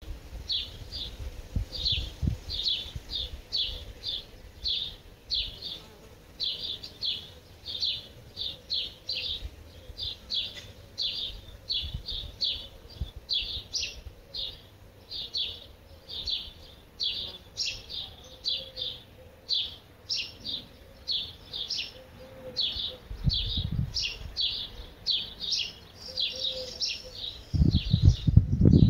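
A steady series of short, high chirps, about two a second, repeated without pause. A low rumble comes in briefly a few times and grows loud near the end.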